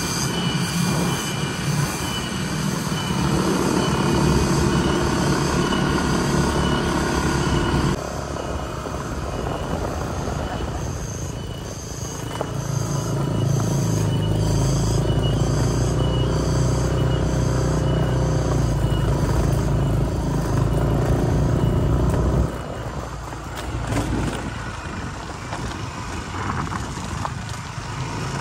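Cicadas (tonggeret) calling in a shrill, evenly pulsing chorus, over a low vehicle engine drone that shifts about a third of the way in and fades out near the end.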